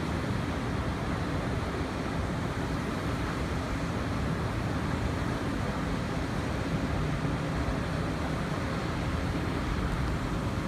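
Steady outdoor rumble of wind buffeting the microphone over a distant traffic hum, even throughout with no distinct events.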